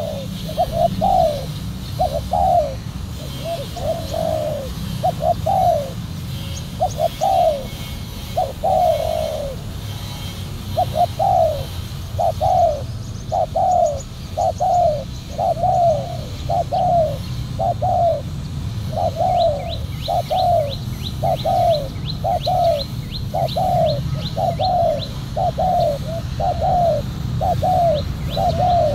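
Spotted doves cooing over and over: a long run of short, low, falling coo notes about one a second, with a brief pause partway. Partway through, a small bird adds a quick series of high chirps over a steady low background rumble.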